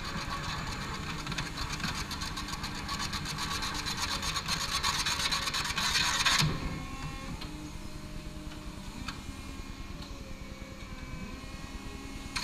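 Clark forklift running with a steady hum. Over it a harsh rasping, grinding noise builds louder for about six seconds, then cuts off suddenly, leaving the machine running alone.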